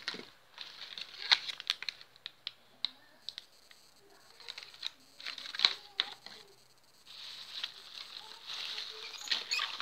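Plastic bag and foil blister strip of amoxicillin tablets being handled, crinkling in irregular stretches with many sharp clicks.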